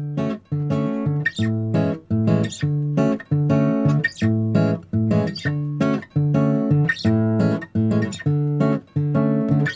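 Background music: a bossa nova tune on acoustic guitar, short plucked chords in a steady rhythm.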